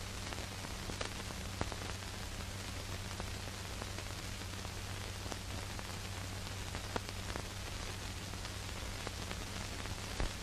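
Surface noise of an old film soundtrack: a steady hiss with a low hum, broken by scattered crackles and pops, a sharper pop about seven seconds in.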